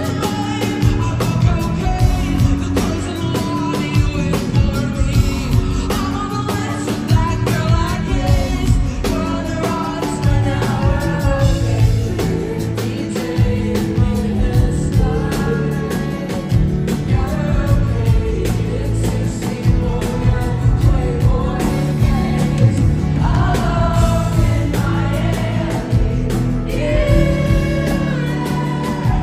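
A live pop band playing, with a female lead vocalist singing over drums, guitars and keyboards, heard from among the audience.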